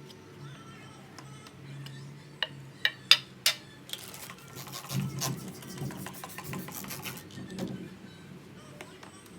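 Soft background music over handling noises: four sharp clicks or knocks about two and a half to three and a half seconds in, then about three seconds of a rasping, rubbing noise.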